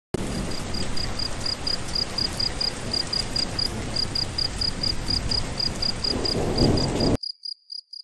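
Cricket chirping in an even run of short high pulses, about five a second, over a loud low noise. The noise cuts off suddenly about seven seconds in, and a few fainter chirps carry on briefly after it.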